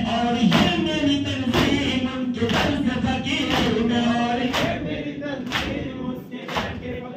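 A crowd of men chanting a Muharram noha in unison, with the whole group striking their chests in matam about once a second. The chanting thins briefly near the end.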